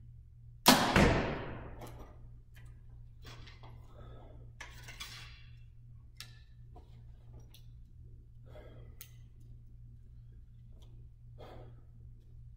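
A 2014 PSE Dominator compound bow being shot: a sharp crack as the string is released, running straight into the arrow's strike on the target and ringing down over about a second. After it come a few faint clicks and rattles.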